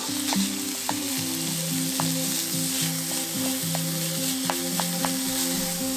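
Ground beef sizzling in a small frying pan as it is stirred with chopsticks, with a few sharp ticks. Soft background music with a slow melody of held notes plays throughout.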